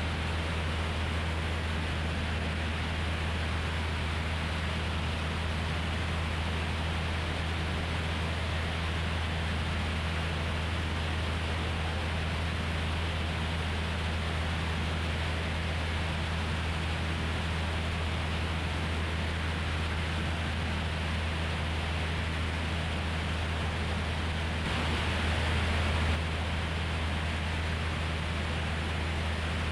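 Cessna 172's engine and propeller running with a steady drone, under constant wind rush on an outside-mounted microphone. The wind noise swells briefly near the end.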